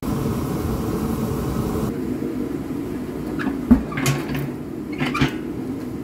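Steady low hum with a few sharp metallic clicks and knocks about halfway through, the loudest a single knock, from hand tools and parts being worked loose under the truck as the exhaust is removed.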